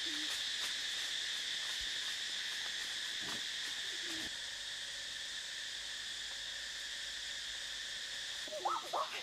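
A steady, high-pitched chorus of insects droning in the forest. Near the end come a few short, wavering pitched calls.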